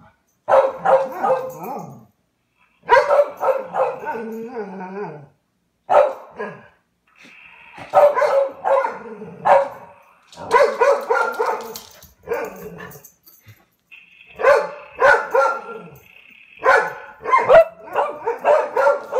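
Dogs barking in repeated bursts of several quick barks with short pauses between, reacting to a sound book's fart noises.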